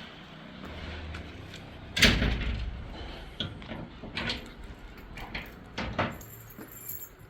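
A door shut hard once about two seconds in, followed by several lighter clicks and knocks.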